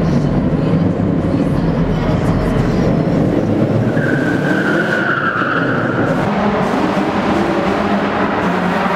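Cars drifting and doing donuts: engines running hard with tyres squealing across the pavement, the loudest squeal lasting about two seconds from around four seconds in.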